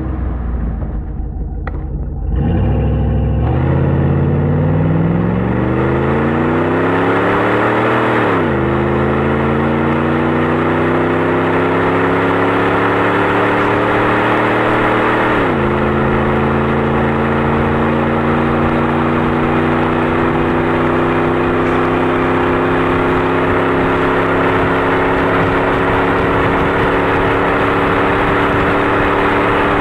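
1997 Jeep Grand Cherokee 5.2-litre V8 through a Magnaflow exhaust, accelerating under load. The engine note climbs from about two seconds in and drops sharply at upshifts about eight and fifteen seconds in. After that it cruises with the note rising slowly.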